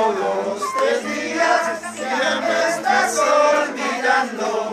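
A group of voices singing a festive folk song together in unison, over instrumental accompaniment with a steady beat.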